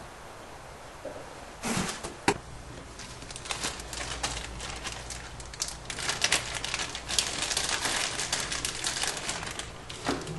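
Hands working with parts: a short rustle and a sharp click about two seconds in, then several seconds of rustling, scraping and small clicks.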